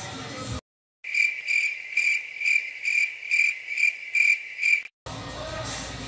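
Cricket chirping sound effect, an even pulsing chirp about twice a second, cut in with dead silence just before and after it, the editor's 'crickets' gag for an awkward silence. The background music cuts back in near the end.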